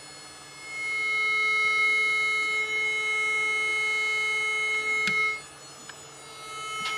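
Homemade flat spiral 'pancake' coil, driven by an amplifier, buzzing a steady tone with higher overtones as it vibrates. The tone comes in under a second in and cuts off a little after five seconds, with a click just before.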